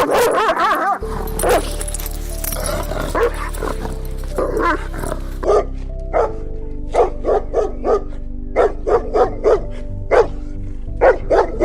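A dog barking over steady background music: a few scattered barks at first, then rapid runs of two or three barks from about halfway through.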